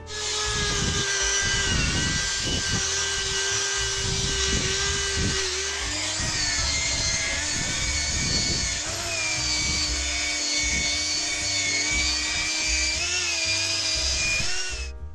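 Electric rotary polisher with a wool buffing pad running steadily while polishing a guitar's frets, its motor whine wavering and dropping in pitch about six seconds in.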